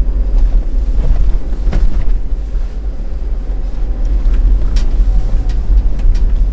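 Cabin noise of an Ineos Grenadier driving in low range: a deep steady rumble from its BMW 3.0-litre inline-six and drivetrain, with a few short knocks from the vehicle.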